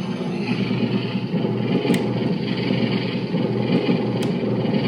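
Haslab Afterlife Proton Pack's electronic idle hum sound effect playing steadily from the pack's speaker, with a couple of faint clicks.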